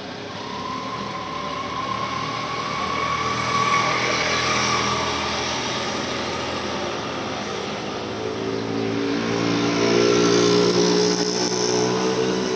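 Traffic noise in a street: motor vehicles going by, with one engine growing louder and peaking about two-thirds of the way through.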